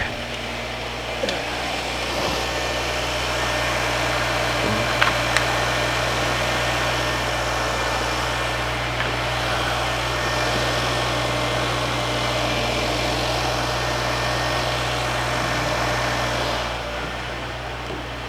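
Car engine idling steadily, a little louder from about two seconds in until near the end, with a few faint clicks. It is the donor car running to charge a flat battery through jumper cables.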